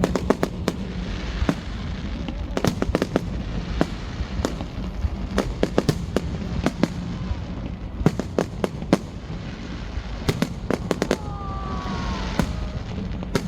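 Fireworks going off: a steady run of sharp bangs and crackles, many coming in quick clusters, over a continuous low rumble.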